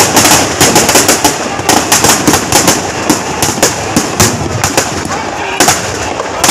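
Firecrackers packed inside a burning effigy going off in rapid, irregular strings of sharp cracks and bangs, thinning out briefly about two-thirds of the way through before picking up again.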